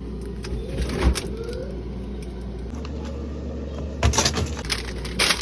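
Several sharp knocks and clatters of items being handled and set down, over a steady low hum.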